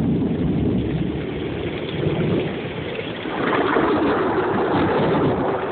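Heavy thunderstorm rain pouring, a steady rushing noise with a low rumble underneath, growing louder about three and a half seconds in.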